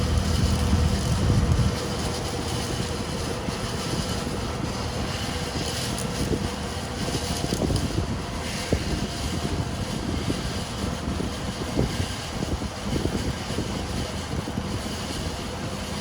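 Heavy diesel machinery running, with a strong low engine note for the first couple of seconds that then drops to a steadier rumble, broken by scattered short knocks and clicks.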